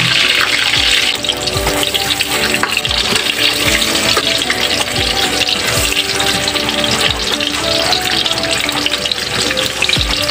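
Eggplant slices frying in hot oil: a steady sizzle and bubbling, with background music underneath.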